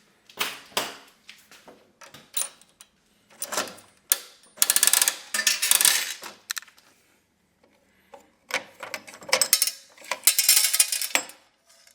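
Candy head of an all-metal triple-head vending machine being turned: the dispensing mechanism clicks, and M&Ms rattle out into the metal chute in two longer spells. It is a test dispense to check that one turn gives a portion of about 7 to 10 candies.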